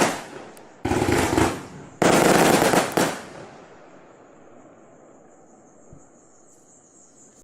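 Gemstone 'Guess What (Girl)' firework going off: a sharp bang, then two dense volleys of rapid crackling reports, each about a second long, that die away about three seconds in, leaving it quiet.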